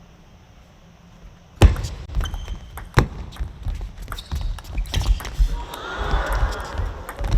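Table tennis rally in an arena hall, starting suddenly about a second and a half in: sharp clicks of the ball off bats and table mixed with heavy thuds, several loud strikes spaced a second or two apart. Crowd noise swells briefly near the end.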